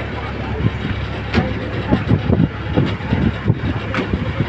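Passenger boat's engine running with a steady low drone, mixed with wind buffeting the microphone and a couple of sharp knocks.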